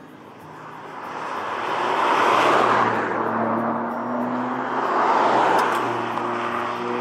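A 2021 Ford Puma ST with a 1.5-litre turbo petrol engine driving past at speed. The engine and tyre noise swells twice as the car comes close, about two and a half seconds in and again about five seconds in, while the engine note rises slightly in pitch between the two.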